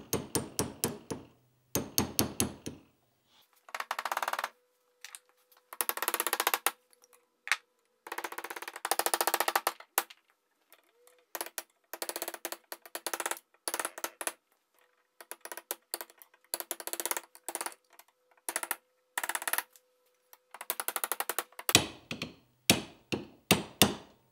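Ratchet clicking in short bursts as the nuts holding the steering arm to the swivel housing are done up. Near the end come several sharp, separate hammer taps on a drift, folding over the lock tabs.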